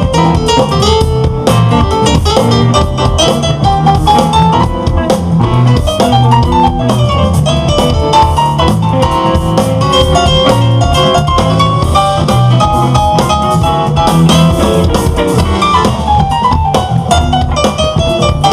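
Jazz-rock fusion band playing: a guitar lead line that bends in pitch, over bass guitar, drum kit and keyboards.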